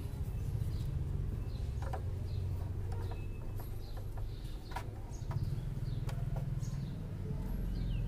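Birds chirping now and then in the background, with a few light metallic clicks of a wrench working a small bolt, over a low steady hum.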